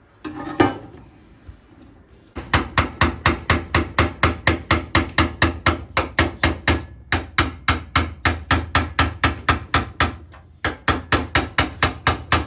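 A hammer rapidly tapping on the steel fender panel of a 1966 Chevy C10, knocking out dents in an even run of about four or five blows a second. It starts about two seconds in and pauses briefly near the end before carrying on.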